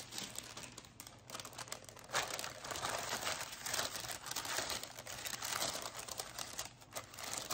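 Parchment paper crinkling and rustling as it is handled, lowered into a pan with a loaf of dough on it and tucked around the loaf; the crackling comes in irregular bursts, picking up about two seconds in.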